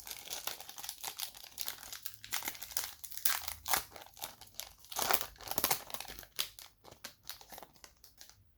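Foil wrapper of a trading-card pack crinkling as it is torn open and handled, in a run of irregular crackling rustles that die away near the end.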